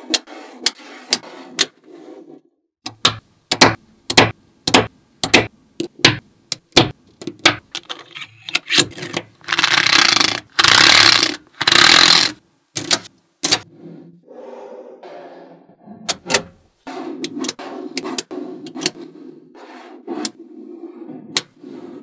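Small magnetic balls clicking as they snap together and are pressed into slabs, a series of sharp separate clicks. About halfway through come two longer rattling scrapes, a card being drawn across the rows of balls.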